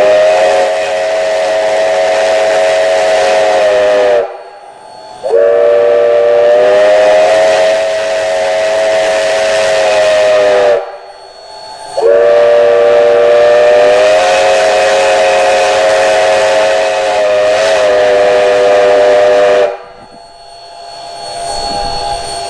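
Steam whistle of a Durango & Silverton K-36 narrow-gauge steam locomotive, No. 481, sounding three long blasts, each a chord of several notes that sags slightly in pitch as it cuts off.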